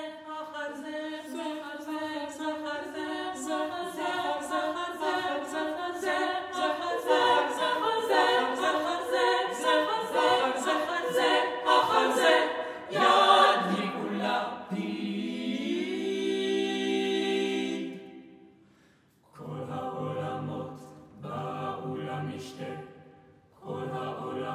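Small mixed-voice chamber choir singing a cappella: quick repeated notes in close chords for the first half, then the voices slide down in pitch into a long held chord that stops about 18 seconds in. After a short pause come three short, detached sung chords.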